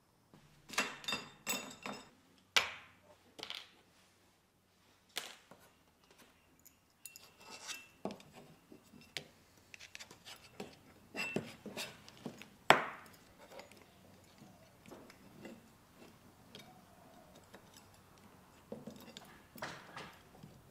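Metal tripod legs and ring clinking and tapping against each other and the workbench as they are handled and fitted together. The sounds are irregular sharp clicks and clinks, some ringing briefly, and the sharpest comes about two-thirds of the way through.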